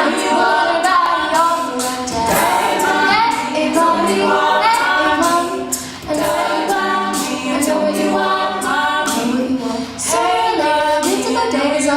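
An a cappella vocal group singing in layered harmony, with short sharp percussive clicks through it.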